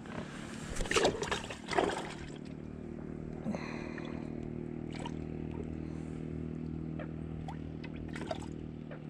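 Water splashing and sloshing in two loud bursts about one and two seconds in, as the just-caught crappie goes into the water, then a steady low mechanical hum.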